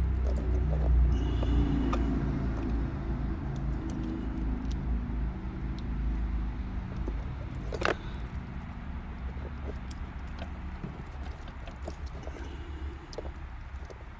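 Small clicks and taps of wire terminals and a plastic ECU harness connector being handled, with one sharper click about eight seconds in. Under them a low engine rumble, like a vehicle running, fades away over the first ten seconds or so.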